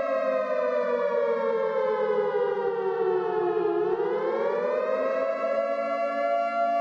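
Warning siren sounding a steady wail in several tones. Its pitch sags slowly to a low point about four seconds in, then climbs back up to the steady pitch.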